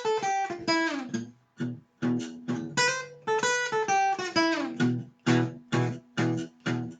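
Acoustic guitar playing the introduction to a song in G, with a run of separate strummed chords that settle into an even beat toward the end.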